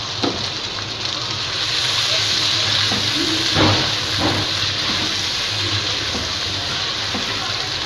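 Chopped onion, capsicum and carrot sizzling in hot oil in a wok, a steady hiss. A spatula stirring adds a few light strokes around the middle.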